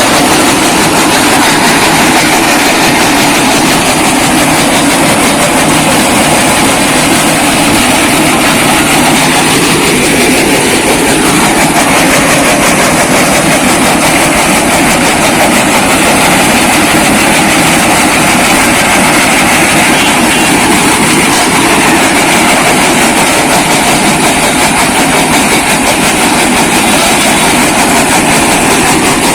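Brick breaker machine running, crushing bricks with a loud, steady rattling clatter of many rapid impacts.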